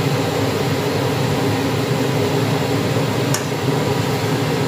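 Steady fan-like hum of a kitchen appliance, with one light metallic click about three seconds in as a wire whisk stirs thick cream in a stainless-steel saucepan.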